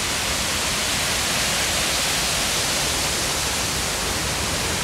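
Steady rush of the Reedy River's waterfall, a constant even roar of falling water with no breaks or changes.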